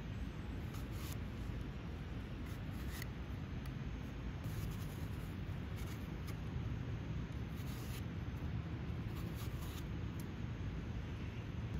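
Apple being peeled by hand with a blade: short, crisp scraping strokes through the skin, coming in irregular runs over a steady low rumble.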